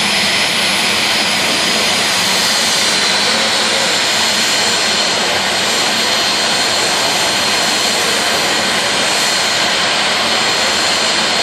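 Jet dragster's turbine engine idling: a loud, steady rush with a high, steady whine on top.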